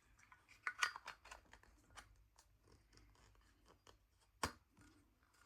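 Small metallic clicks and scrapes of a Zippo Fliplight LED insert being slid back into its metal Zippo lighter case, with one sharp click about four and a half seconds in as it seats.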